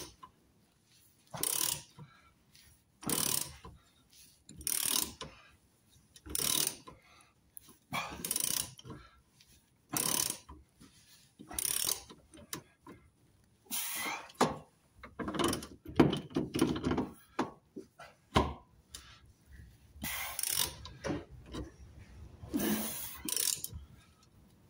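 Ratchet wrench clicking in repeated short strokes, about one every second and a half to two seconds and then in quicker bunches, as it winds a threaded draw bolt that pulls a new rubber shock absorber bush into place.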